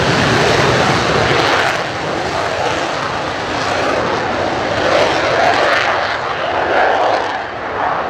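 Twin J79 turbojet engines of an F-4EJ Kai Phantom II at takeoff power: a loud, steady jet-engine rush with a few swells in loudness as the fighter accelerates down the runway and lifts off.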